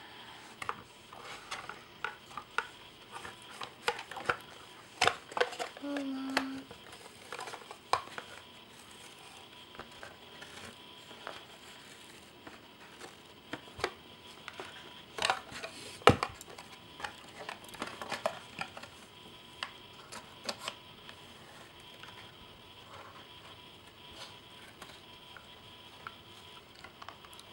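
Scissors cutting into a cardboard box and the box being handled and turned over: irregular snips, clicks, knocks and rustling, with one sharper knock about two-thirds of the way through.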